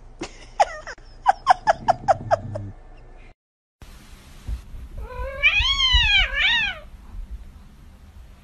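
Cats squabbling, with a quick run of short, sharp cries. After a break, a cat gives one long meow that rises and falls, then a shorter one.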